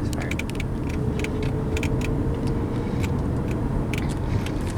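Car cabin road noise while driving: a steady low rumble of engine and tyres, with light irregular clicks and rattles.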